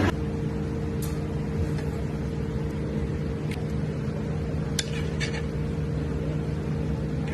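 A steady mechanical hum from kitchen equipment, with a few light clinks of utensils against dishes.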